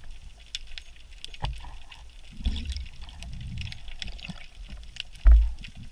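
Underwater sound through a camera housing while a speared fish is handled on the spear shaft: scattered faint clicks, a low rumble of water movement in the middle, and one dull thump near the end.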